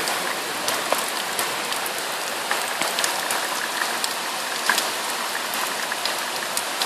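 Very heavy tropical-storm rain falling hard: a steady dense hiss with many scattered sharp ticks of drops striking nearby surfaces.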